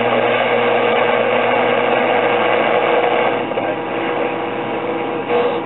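Static and hiss from the speaker of a home-built LM386 regenerative AM receiver being tuned between stations, with a steady whistle and a low hum over the noise. The noise and the whistle drop off about three and a half seconds in, and the whistle comes back briefly near the end.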